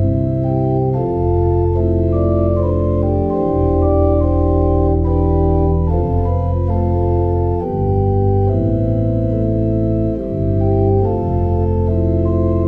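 Organ playing a slow, sustained hymn-like piece, with held chords over a deep bass line and the notes changing every second or so.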